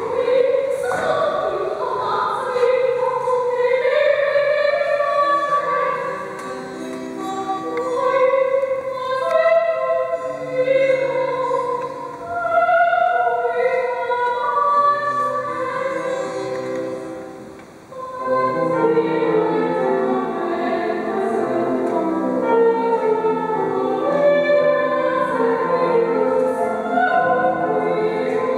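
Live opera singing with instrumental accompaniment. About two-thirds of the way in the music drops away briefly, then comes back fuller and denser.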